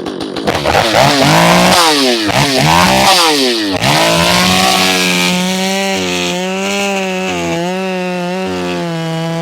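Stihl 500i two-stroke chainsaw revved up and down several times, then held at full throttle as the chain cuts into a large log, its pitch dipping slightly now and then under load.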